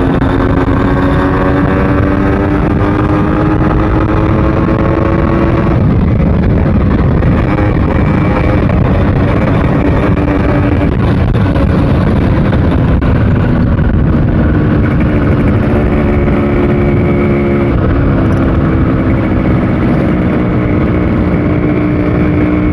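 Yamaha RX100's two-stroke single-cylinder engine running on the move. Its pitch climbs slowly for the first several seconds, drops about six seconds in, holds fairly level, then climbs again near the end.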